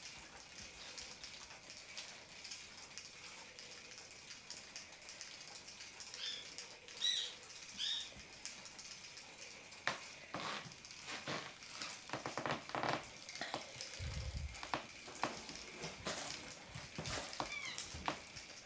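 Kitten playing with a battery-powered Flutterfly spinning butterfly toy on a tile floor: quick taps, knocks and a low thump from paws and toy from about ten seconds on, over a faint steady whir from the toy's motor. A few short, high chirps come around six to eight seconds in.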